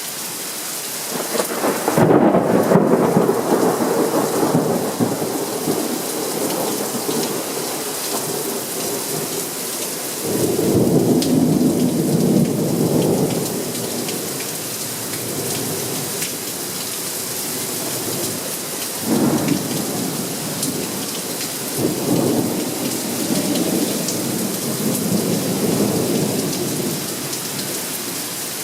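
Thunderstorm: steady rain with thunder. A sudden clap about two seconds in rumbles on for several seconds, and further rolls of thunder come near the middle and twice in the last third.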